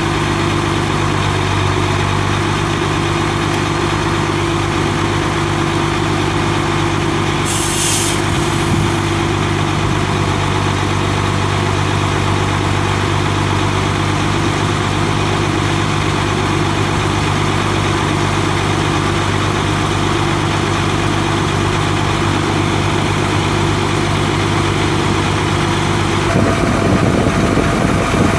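Cummins 8.3 L inline-six turbo diesel of a Ford F800 bucket truck idling steadily, with a brief hiss about eight seconds in. The sound grows louder and rougher near the end.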